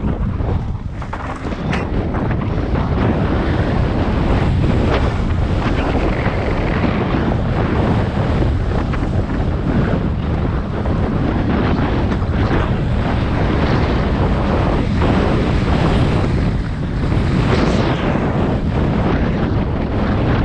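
Wind rushing over an action camera's microphone on a Santa Cruz Hightower LT downhill mountain bike at speed. Tyres roll over dry dirt, and the bike knocks and rattles over bumps throughout.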